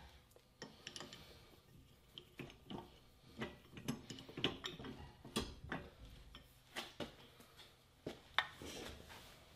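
Faint, irregular metallic clicks and clinks from the parts of a hydraulic-jack tube bender being handled.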